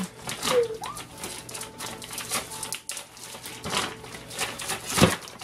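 Plastic packaging crinkling and rustling in irregular crackles as fish fillets are pulled out of their vacuum pack, with one sharper knock about five seconds in.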